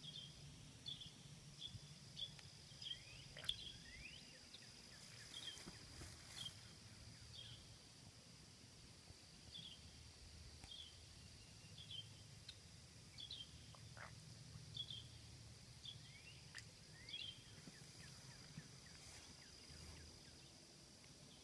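Faint outdoor animal ambience: short high chirps repeating about once a second, with a few rising calls, over a steady high-pitched hum and a low rumble. A single sharp click comes about three and a half seconds in.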